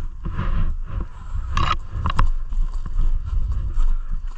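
Footsteps and movement of a body-worn action camera: irregular low thumps and rustling as the wearer moves over rough ground, with a couple of sharper clicks near the middle.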